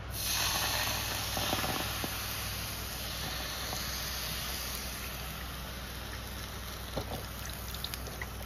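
Cream poured from a carton into a hot cast-iron skillet, sizzling sharply as it hits the pan, then settling to a steady sizzle with a few pops near the end.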